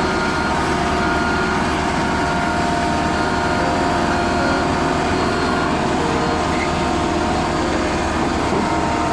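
Diesel engines of heavy construction machinery running steadily, an even drone with no sharp changes.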